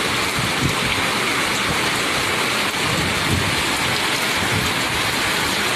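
Heavy tropical-storm downpour, rain pouring steadily in a dense, even hiss.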